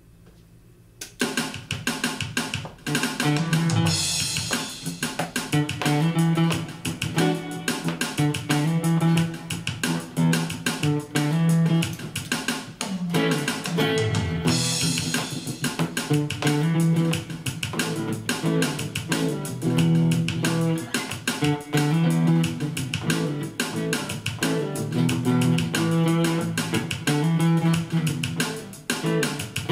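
Funk jam: a plucked guitar playing a groove with bass and drums, starting about a second in.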